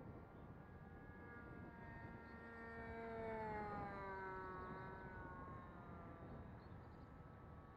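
Kaos 60 radio-control model airplane making a faint fly-by: its engine note climbs in pitch as it approaches, is loudest about three and a half seconds in, then drops in pitch as it passes and goes away.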